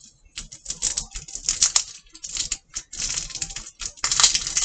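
Red wax coating of a Babybel cheese being peeled off by hand, crackling and crinkling in quick, irregular bursts.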